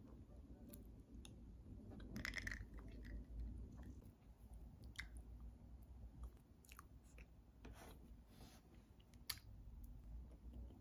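Faint chewing of soft cream-puff pastry, with a few light clicks and taps scattered through, the densest cluster about two seconds in.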